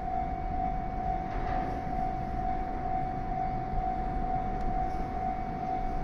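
Japanese railway level crossing's electronic warning bell ringing steadily with a fast, even pulse, as the crossing signals flash, over a low rumble.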